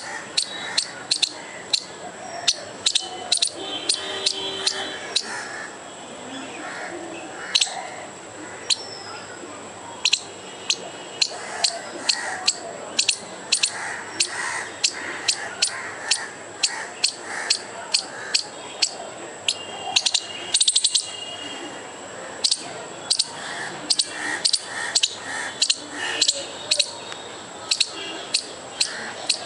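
Squirrel alarm calling: sharp, high chips repeated irregularly, one to three a second, with a quick run of them about twenty seconds in. It is a scolding alarm at a perceived threat, a dog.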